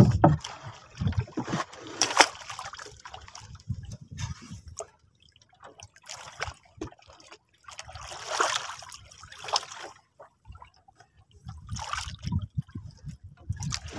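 Water sloshing and splashing against the hull of a small wooden outrigger boat, in irregular bursts with brief lulls.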